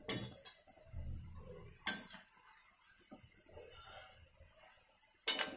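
A slotted steel spoon clinking against a steel kadai as it stirs hot oil around frying jamuns: four sharp clinks spread out, with quiet sizzling in between.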